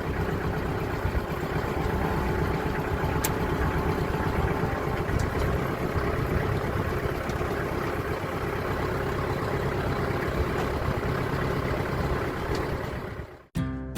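Tractor engine running steadily while the bucket-mounted rake works the ground to level it. The engine sound cuts off suddenly near the end and acoustic guitar music begins.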